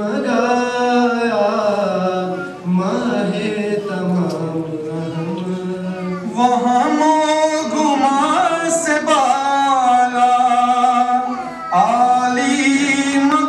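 A group of young men singing an Urdu nazm (tarana) together in unison, in long held, sliding notes. There are brief breaks between lines, and the singing grows louder about halfway through.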